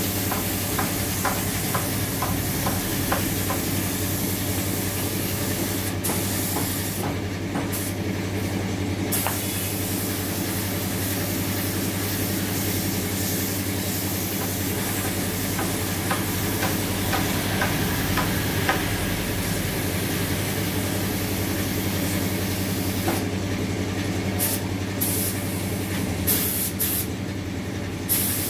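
Paint spray gun hissing steadily as it sprays, over a steady low hum. The hiss cuts out briefly about a third of the way in and again in several short breaks near the end.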